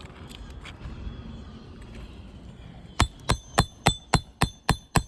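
Hammer blows: eight quick, sharp metallic strikes, about three or four a second, each with a short ring, starting about three seconds in.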